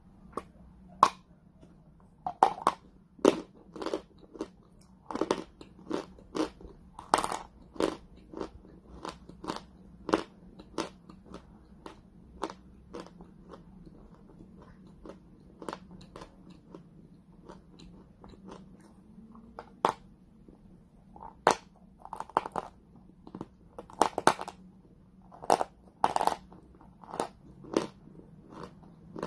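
Close-up crunching of someone biting and chewing chalk: many sharp, irregular crunches, about one or two a second, with a quieter stretch of softer chewing in the middle.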